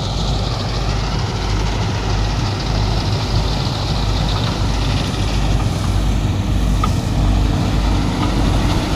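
Combine harvester's diesel engine running steadily, a continuous heavy engine drone with strong low bass.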